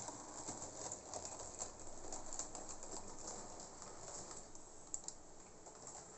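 HO-scale model steam locomotive and wagons running during a shunt, a faint, irregular patter of small clicks and rattles from the wheels on the rail joints and points.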